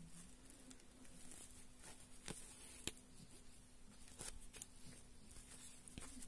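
Faint hand-sewing sounds: lace fabric rustling and thread drawn through it with a needle, with a few soft clicks around the middle, over a low steady hum.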